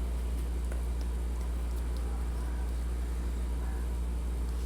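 Steady low hum with a few faint ticks over it.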